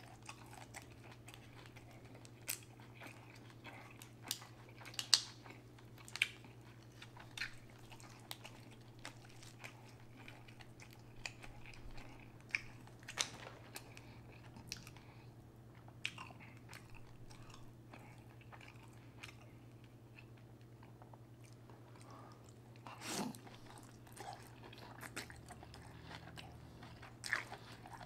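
Close-miked chewing and mouth sounds while eating seafood boil: scattered sharp, wet clicks and smacks at an irregular pace, over a steady low hum.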